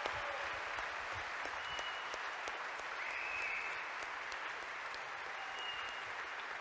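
Theatre audience applauding steadily, dense clapping with a few short high whistles.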